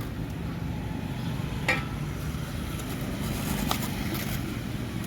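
Steady low rumble of roadside traffic, with one sharp click about a third of the way in and a few lighter clatters a little later.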